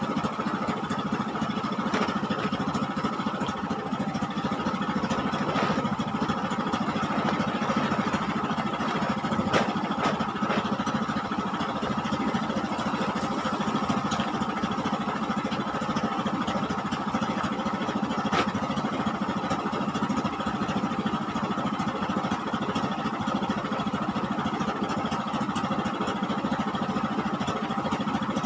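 A fishing boat's engine running steadily at constant speed, with a few faint knocks over it.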